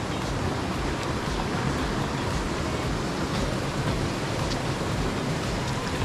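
Mountain stream water rushing, a steady even rush without breaks.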